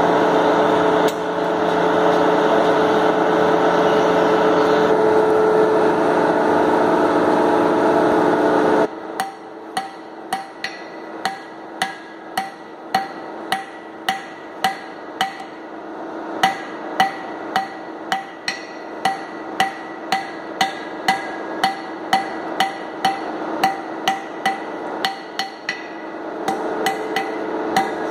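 An open hearth forge's air blower runs with a steady rush and hum as the mild steel rod heats in the fire. About nine seconds in this stops, and steady hand-hammer blows on the anvil begin, roughly one and a half a second, each with a short metallic ring: the hot rod's round end is being hammered into a rectangular cross section.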